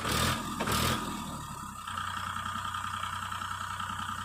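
Sonalika 740 tractor's diesel engine running steadily while the tractor sits stuck in mud, with two short, loud bursts of noise in the first second.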